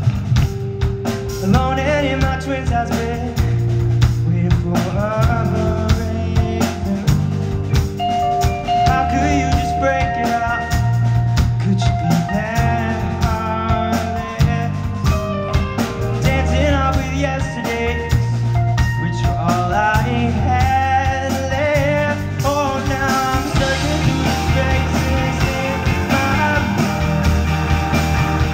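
Live rock band playing a song: drum kit and electric bass under electric guitars and keyboard.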